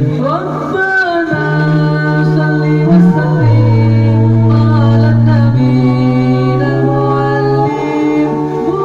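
Male vocal trio singing an Islamic sholawat a cappella. A low held bass note steps to a new pitch every couple of seconds beneath a wavering, ornamented lead melody.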